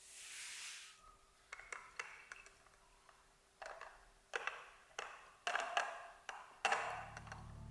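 A short hiss, then a series of light clinks and taps of tableware, a few with a brief ring, as tea things are handled. Soft music comes in near the end.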